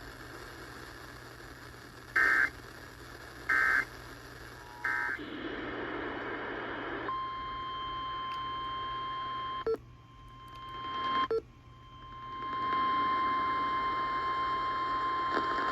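Emergency Alert System end-of-message data bursts over radio static: three short, shrill warbling beeps about a second and a half apart. Then a duller radio hiss with a steady single tone near 1 kHz, broken by two clicks about a second and a half apart, while the hiss dips and swells back.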